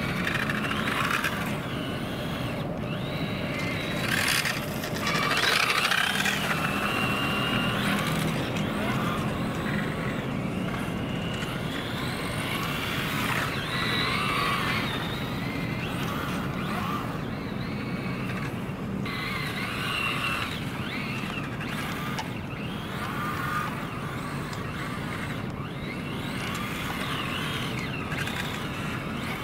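Electric motor and drivetrain whine of a Tamiya TT-02D 1/10 RC car running on grass, rising and falling in pitch as the throttle is worked.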